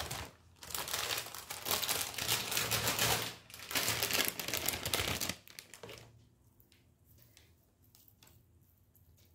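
Plastic wrapping crinkling and rustling as it is handled, for about five seconds, then a few faint clicks.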